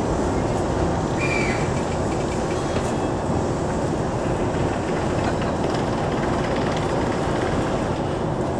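Steady rumbling noise inside an E233 series 2000 subseries commuter train car standing at a station while it waits to depart, with a few faint clicks and chirps.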